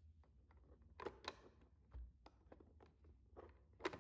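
Near silence with a few faint, short clicks and light knocks, the loudest just before the end.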